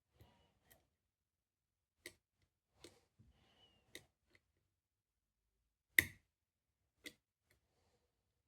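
Sparse, irregular metallic clicks from a wire pick and a tensioned, ground-down key working the levers inside a seven-lever safe lock, with one sharper click about six seconds in.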